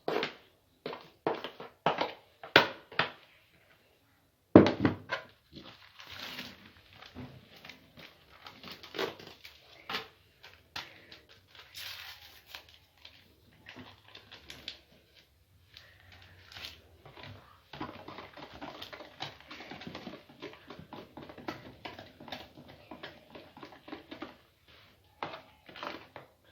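A utensil knocking and scraping in a mixing bowl as cake batter is mixed, in irregular clatters, then about six seconds of continuous scraping and stirring near the end.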